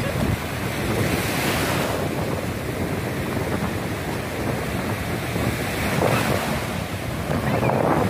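Shallow sea surf washing and breaking, a steady rush, with wind rumbling on the microphone.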